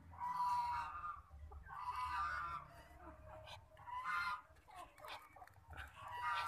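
An otter calling: four short pitched calls in a row, about one every one and a half to two seconds.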